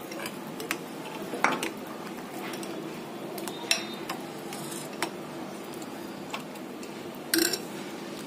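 A metal spoon clinking and scraping against a ceramic plate and a glass bowl as crumbled khoya is pushed off the plate and stirred into milk. Scattered clinks, the loudest about a second and a half in and again near the end, over a steady low hum.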